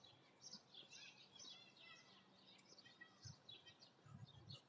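Faint birdsong: several small birds giving many short chirps and trills, over a faint low hum, with some low rumbling near the end.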